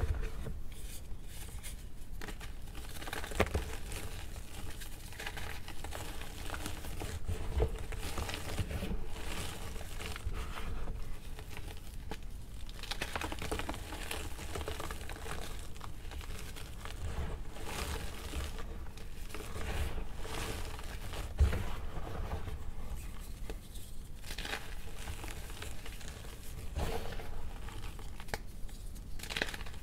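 Hands squeezing and crumbling dry gym chalk, powder and broken blocks, making a steady soft crunching and crumbling, with a few louder crunches now and then.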